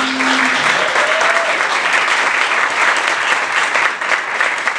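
Theatre audience applauding: dense, steady clapping. The last chord of the guitars rings out and dies away in the first half-second.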